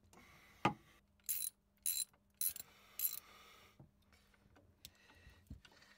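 Socket ratchet clicking in short runs while undoing the 13 mm bolts that hold the raw water pump's base plate to a Volvo Penta D1-30B marine diesel. There are about five quick runs in the first three seconds, then a few fainter clicks.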